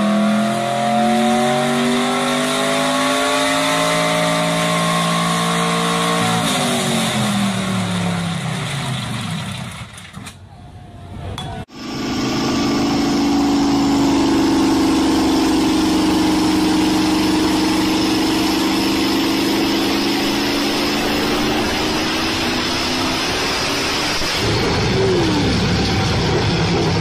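Pickup truck engines running at full throttle on chassis dynamometers. The first climbs in pitch for about six seconds, then winds down and fades. After a short quieter gap a diesel pickup pulls hard with a steady drone that slowly rises and then falls, and its sound changes near the end as the engine fails.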